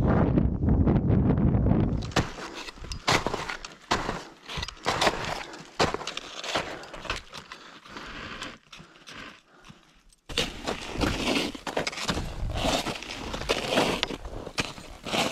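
Wind buffeting the microphone for about two seconds, then ski boots kicking steps into firm snow: a string of irregular crunches, dropping off briefly about two-thirds of the way through before starting again.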